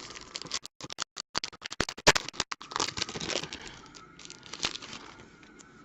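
Football trading card packs being opened and handled: foil wrappers crinkling and tearing among sharp clicks, dense for the first three and a half seconds and then thinning out.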